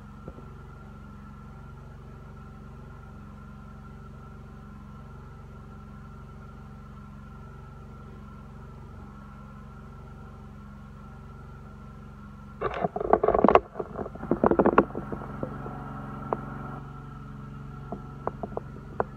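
Steady mechanical hum with a few held tones throughout. About two-thirds of the way in, a few seconds of loud, irregular handling noise as a cut-glass dish is moved about close to the microphone.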